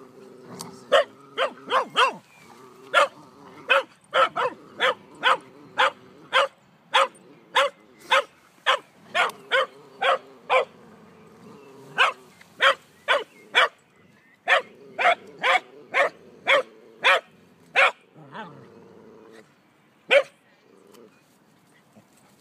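Dog barking rapidly and over and over in a tug-of-war over a stick, about one to two sharp barks a second with short pauses and one last bark near the end. Low growling runs between the barks.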